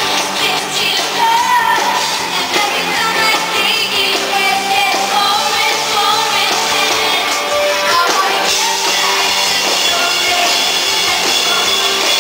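Pop-rock song with a lead singer over electric band backing and a drum kit.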